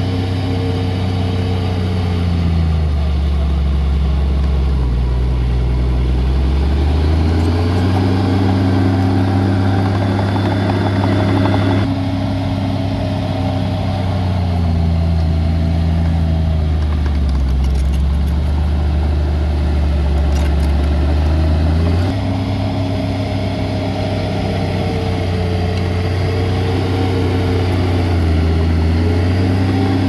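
Heavy diesel engine of earthmoving machinery running at work, its pitch sagging and recovering several times. The sound jumps abruptly twice.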